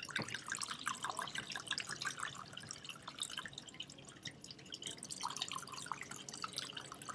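White wine glugging from a bottle and splashing into wine glasses, a quick run of small gurgles and drips.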